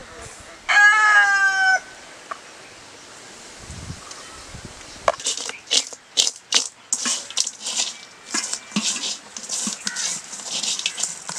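A chicken calls once near the start, a single pitched call about a second long that falls slightly in pitch. From about five seconds in comes a fast, irregular clicking and rustling: raw crab pieces in a metal pot being tossed and mixed by hand with spice powders.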